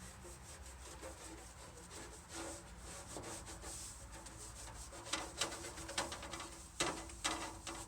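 Hand rubbing or scrubbing strokes on the old toolbox: faint scraping at first, then louder quick strokes, about three or four a second, from about five seconds in.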